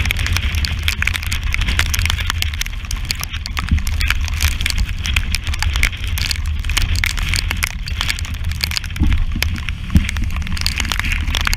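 Wind buffeting the camera microphone with a steady low rumble, while sea spray spatters against the camera housing in many sharp ticks, with a heavier splash about ten seconds in.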